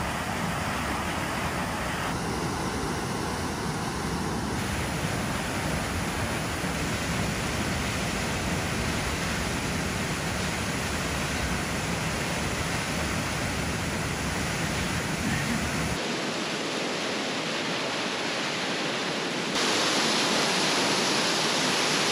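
Rushing water noise of a tall waterfall close by, steady throughout. Its tone changes abruptly several times: the low rumble drops out about two-thirds of the way through, and the sound gets louder and hissier near the end, right beside the falling water.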